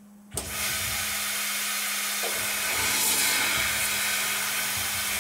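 Tormach CNC lathe spindle turning while single-point threading an aluminium part, with a steady hum under a loud, steady hiss that comes on suddenly about a third of a second in.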